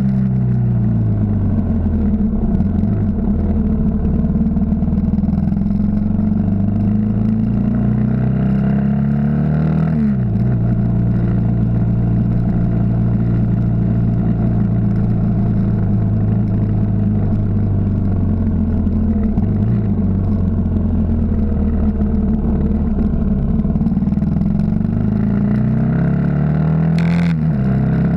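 Yamaha XT 600 air-cooled single-cylinder four-stroke engine running under way, its note falling and rising with throttle and gear changes, with sharp drops in revs several times. Wind and road noise lie under it.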